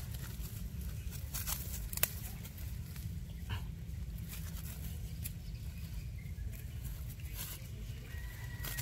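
Rustling and a few light clicks from a mesh sack and dry leaves as a snake is handled, over a steady low rumble.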